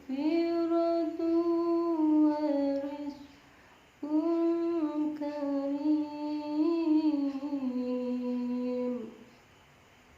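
A single voice in melodic Qur'an recitation (qira'ah), drawing out long ornamented notes in two sustained phrases, the second stepping down and ending about nine seconds in. The voice is hoarse from a cough and cold and is kept soft.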